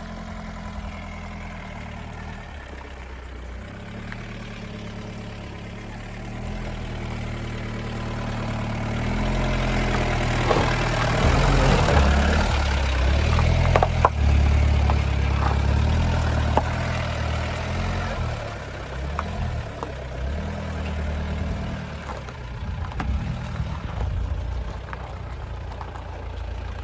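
Mahindra Scorpio's 2.6-litre diesel engine running at low revs as the SUV crawls over rough ground. Midway it grows louder, with tyres crunching over gravel and stones clicking under them, then eases back to the steady engine drone.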